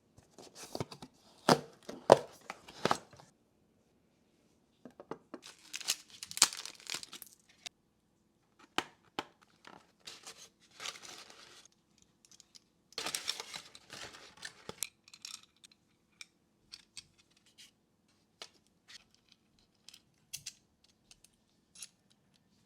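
Packaging being torn open and crinkled during an unboxing, with sharp clicks and knocks as the gear is handled. The loudest clicks come in the first three seconds; after that come bursts of tearing and crinkling and scattered small clicks.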